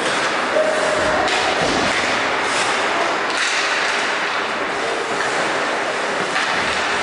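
Ice hockey game in an indoor rink: continuous rushing noise of skates cutting the ice and echoing arena sound, with a single thud about half a second in.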